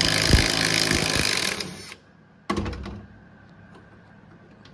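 Bauer impact wrench hammering as it backs out a truck cab bolt: a loud, rapid rattle for about two seconds that stops, then a second short burst about two and a half seconds in that quickly spins down.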